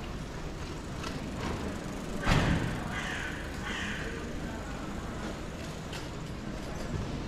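A single loud thump about two seconds in, over steady outdoor background noise with a few faint knocks.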